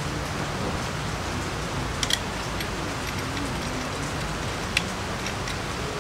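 Steady hiss of background noise, with two light clicks of small metal brackets and screws being handled, about two seconds in and near the end.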